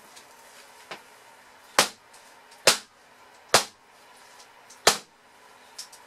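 Loaf soap mold full of freshly poured goat milk soap batter banged down on a work surface: one light knock, then four loud, sharp knocks about a second apart, to settle the batter and knock out air bubbles.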